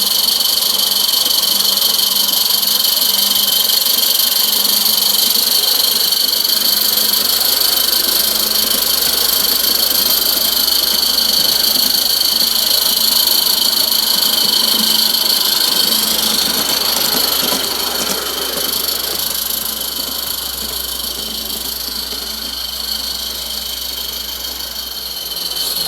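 A 16mm-scale live steam model locomotive running on a garden railway track, a continuous mechanical chuffing with a steady high-pitched whine over it. It grows somewhat quieter about two-thirds of the way through, then louder again at the end.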